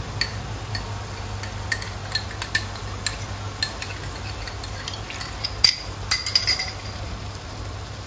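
A spoon clinking and scraping against a small bowl as sauce and water are emptied into a frying pan: light separate clinks about every half second, coming thicker about six seconds in, over a steady low hum.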